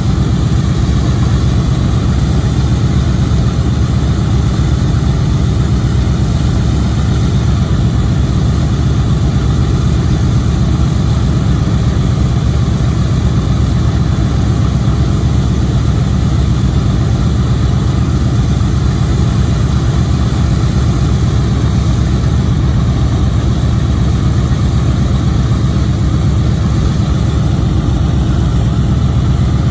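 Boeing B-17G Flying Fortress's Wright R-1820 Cyclone nine-cylinder radial engines idling steadily with the propellers turning, a loud, even low drone.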